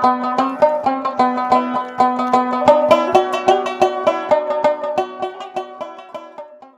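Background music: a quick tune of plucked string notes that fades out near the end.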